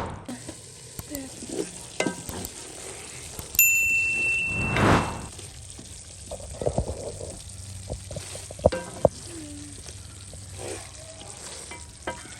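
Food frying in hot oil: a steady sizzle, with scattered clicks and knocks of utensils. A brief high tone sounds about three and a half seconds in.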